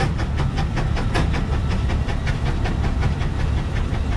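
Case 150 hp steam road traction engine working under heavy load on a prony brake, its exhaust barking in rapid, even beats over a steady low rumble. The load is about 900 pounds on the brake scale, with the engine pulled down to roughly 182 RPM.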